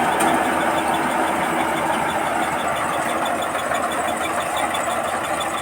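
Combine harvester running steadily at work.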